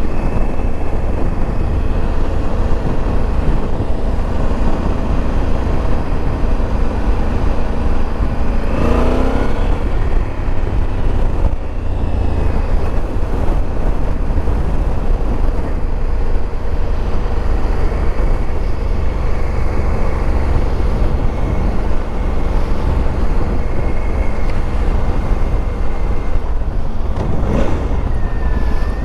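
Honda CRF1100L Africa Twin's parallel-twin engine running under way, half buried in heavy wind rush on the microphone, with a short rising pitch about nine seconds in and again near the end.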